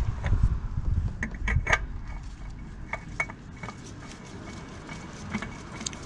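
A new spin-on oil filter being threaded onto the engine's filter mount by a gloved hand: scattered light clicks and rubbing as the canister turns, most of them in the first two seconds.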